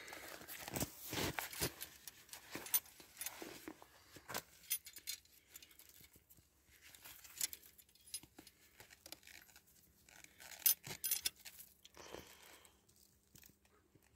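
Metal snare hardware (cable lock, swivel and washers on steel snare cable) clinking and jangling in irregular light clicks while the cable is threaded through the lock, with faint handling rustles; one sharper clink about three-quarters of the way in.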